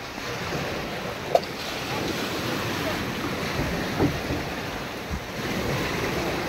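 Small waves breaking and washing around the hull and outrigger of a beached outrigger boat, a steady surging rush, with wind buffeting the microphone. A couple of short knocks sound about a second and a half in and again around four seconds in.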